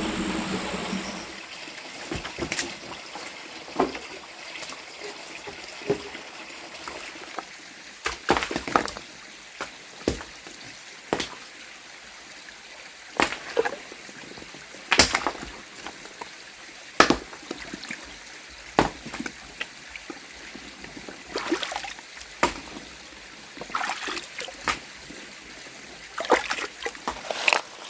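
Water trickling steadily, with scattered sharp clicks and knocks over it.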